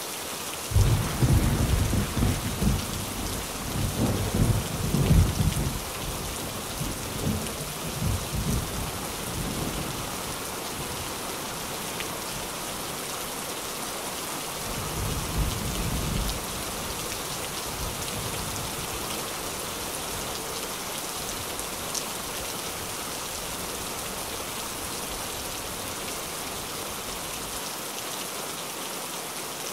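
Steady rain falling on a tin roof. A low rumble of thunder starts about a second in, rolls on for several seconds and fades, and a second, shorter rumble comes about halfway through.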